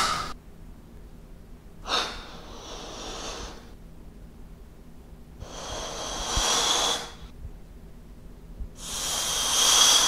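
Air being blown into a latex balloon in three long puffs, about two, five and nine seconds in, each a hissing rush of air. The last puff is the loudest.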